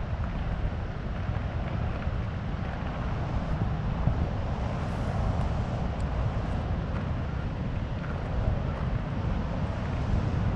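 Wind buffeting the camera microphone: a steady, gusting low rumble with a weaker hiss above it.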